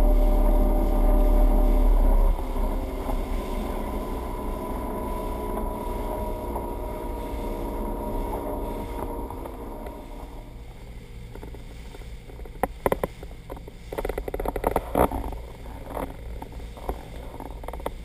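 Motorboat engine running under way while towing, with rushing water and wake noise. About two seconds in, the engine note drops a little and the heavy low rumble eases, then it runs steadily and grows fainter. From about twelve seconds in, scattered short sharp knocks.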